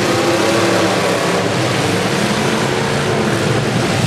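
Several demolition derby cars' engines running loudly together, revving as the cars shove into one another on a dirt track.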